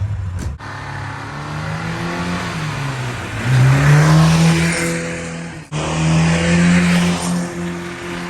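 Zhiguli's four-cylinder petrol engine revving hard while the car drifts on snow. Its note climbs and then holds high and loud, under a rushing noise. The sound breaks off abruptly twice, at about half a second in and just before six seconds.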